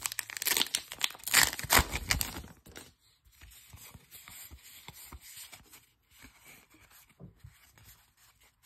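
A trading-card pack wrapper being torn open and crinkled, loudest over the first two or three seconds, then quieter rustling and sliding of cards being handled.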